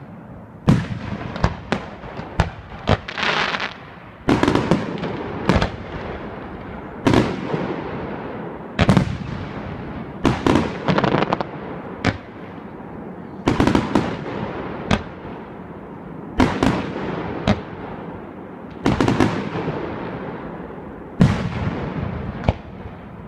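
Aerial firework shells bursting one after another, a sharp bang every second or two, each followed by a fading echo.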